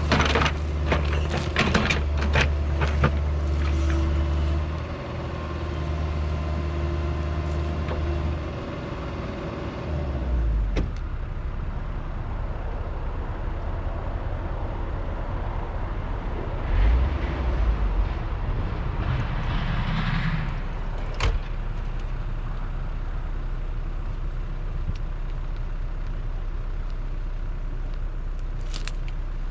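Diesel engine of a tracked earthmoving machine running, with clanks and knocks in the first few seconds. About ten seconds in its note drops to a steadier, quieter drone, with a few more knocks later.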